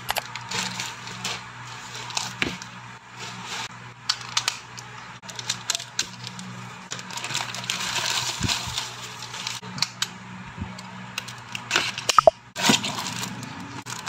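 Plastic packaging rustling and crinkling in irregular bursts as a plastic mailer pouch is opened and a clear plastic bag is unwrapped, over a low steady hum.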